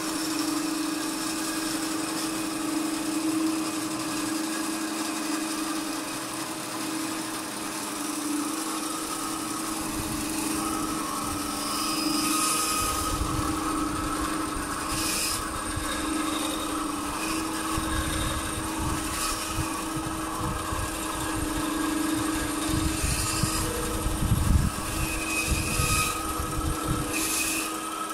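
Small electric power tool running steadily with a constant motor hum. From about ten seconds in, a rougher grinding is added as it bites into the wood of the roasted maple headstock, with short scratchy strokes near the end.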